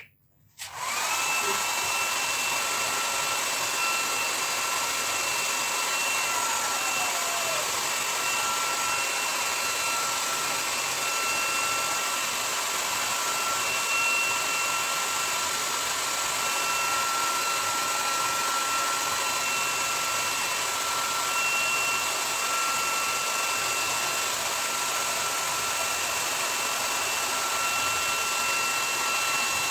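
Electric hair dryer switched on under a second in and running steadily: a constant rush of air with a steady high whine.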